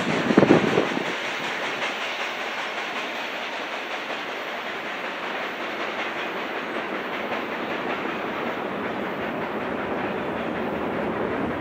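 Loaded covered-hopper grain train rolling away on the rails, its wheels clicking steadily over the track. A brief, louder low thump comes about half a second in.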